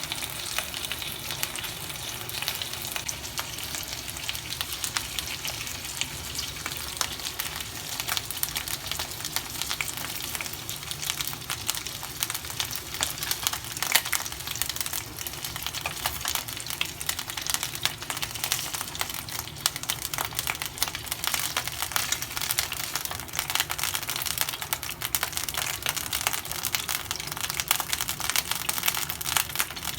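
Food frying in hot cooking oil in a pan: a steady sizzle thick with fine crackles and pops, one pop louder about fourteen seconds in.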